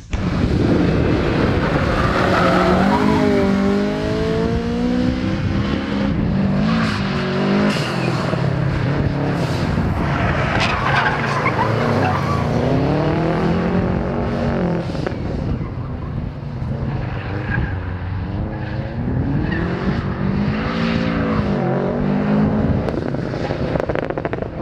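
Cars being driven hard on a sprint circuit. The engines repeatedly rev up and drop back through gear changes and corners, with tyre squeal.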